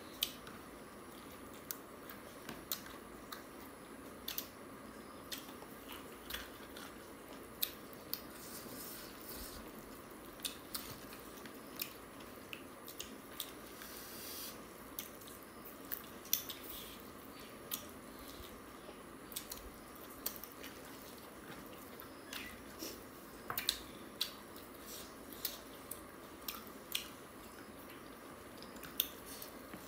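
Close-miked mukbang eating sounds: chewing and mouthfuls of rice and chicken curry, with frequent short, sharp smacks and clicks at an irregular pace over a steady faint hiss.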